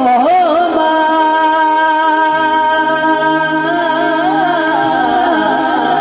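A man singing a devotional bhajan melody with wavering, ornamented notes over held keyboard chords. A low sustained bass note comes in about two seconds in.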